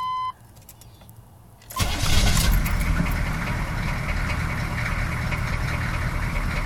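A dashboard chime cuts off just after the start. About two seconds in, a 6.2-litre V8 diesel engine is cranked and fires, then runs on roughly. The owner suspects a clogged fuel filter is behind the rough running.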